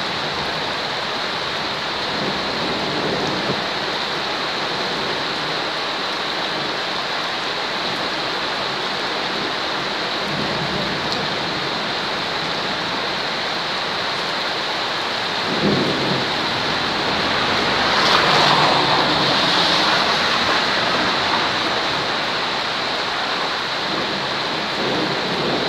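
Steady rain falling, with thunder breaking a little past halfway and rumbling on for several seconds before the rain alone is left.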